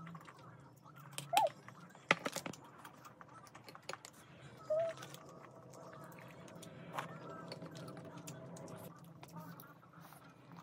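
Eating sounds from a mukbang: wooden chopsticks clicking and tapping against a plastic takeout container of tteokbokki, a few separate sharp clicks, with two short squeaky sounds from the mouth and a low steady room hum underneath.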